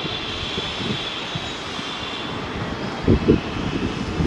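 Turbofan engines of an IndiGo Airbus A320-family jet running at low thrust as it taxis: a steady jet noise with a high whine. A couple of low thumps come about three seconds in.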